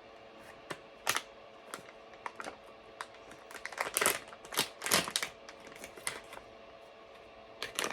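Irregular sharp clicks and crinkles of plastic packaging being handled as a squeeze toy is taken out, coming thickest about four to five seconds in.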